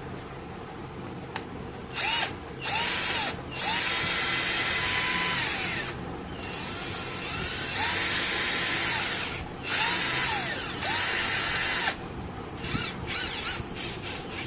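Cheap 12 V cordless drill run in repeated bursts of about one to two and a half seconds. Each time the motor whine rises as it spins up, holds steady, and falls as the trigger is released, with a few short blips near the end.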